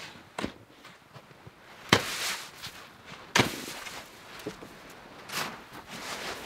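Snow shovels digging into deep, dry snow: sharp crunching strikes as a blade is driven in, the loudest about two seconds in and another a second and a half later, each followed by a short hiss of snow being lifted and thrown, with softer scrapes toward the end.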